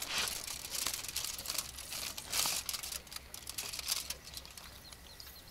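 Aluminium foil crinkling in short, irregular bursts as hands press and squeeze a lemon over a fish laid on it. The bursts grow fainter after about three seconds.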